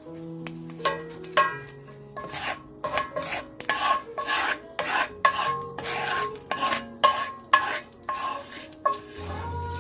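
Bamboo spatula stirring and scraping across a cast-iron skillet of hot oil, in quick repeated strokes of about three a second.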